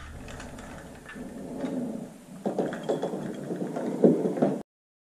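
Wires and a timer switch handled at a metal electrical box: rustling, light scraping and small knocks that start about halfway in and cut off suddenly near the end.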